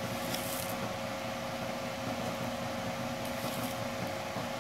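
Steady electric hum of a running household appliance motor with a constant whine, with two brief faint rustles about half a second in and again near the end.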